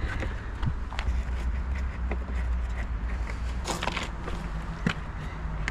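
Scattered light clicks and knocks of hand tools working on bumper bolts, with a short scraping rustle about four seconds in, over a steady low rumble.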